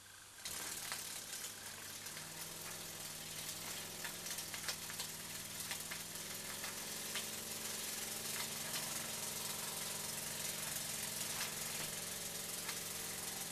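Gem toy marine steam engine starting up about half a second in and then running fast and steadily: the single oscillating cylinder rattles and chuffs with a hiss of escaping steam, slowly getting louder.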